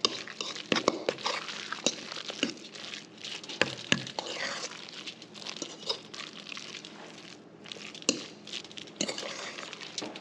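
Metal fork stirring and mashing a thick fish-and-mayonnaise dip in a stainless steel bowl: irregular clinks and scrapes of the fork against the bowl.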